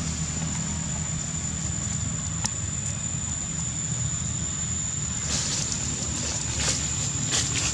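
Outdoor ambience: a steady low rumble with a constant thin high-pitched whine, and a few short rustles starting about five seconds in.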